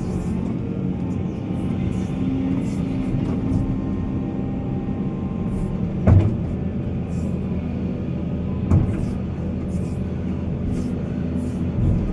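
Heavy earthmoving machine's diesel engine running steadily under load, with two sharp knocks about six and nine seconds in.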